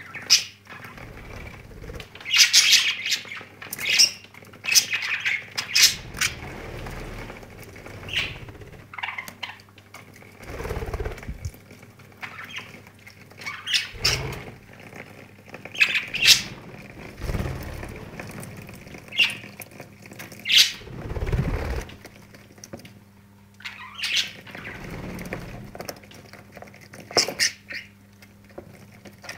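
Pet budgerigars chirping and squawking in short, scattered calls while they bathe, over the faint steady trickle of water running from a shower spout into a plastic bird bath, with a few dull thumps.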